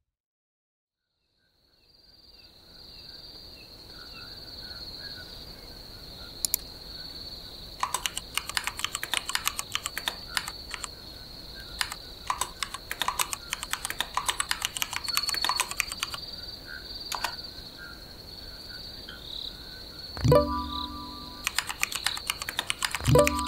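A steady high chirring of crickets fades in after a moment of silence. Computer keyboard typing starts about eight seconds in, as rapid clicks in bursts. Near the end a short chat message notification tone sounds twice.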